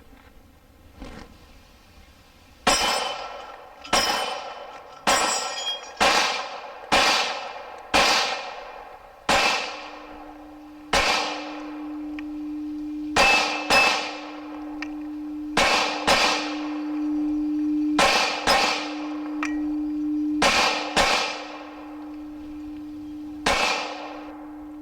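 A run of about seventeen 9mm shots from a Glock 26 pistol, fired at a quick, uneven pace, each followed by the clang of steel targets ringing. From about ten seconds in, a struck steel gong keeps ringing with one steady tone under the shots.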